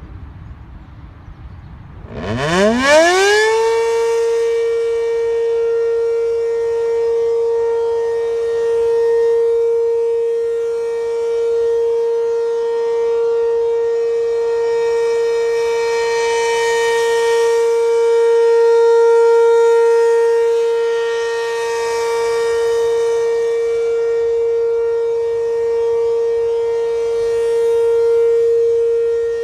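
ACA P-15 civil defense siren starting up about two seconds in, winding up quickly to a steady tone and holding it as an alert signal. It is extremely loud, and its level swells and fades every several seconds.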